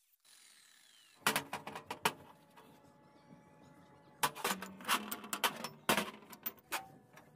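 Small steel pieces being handled and set down on a steel block and worktable: bursts of sharp metal clinks and knocks, one short cluster a little over a second in and a longer run of them from about four seconds in.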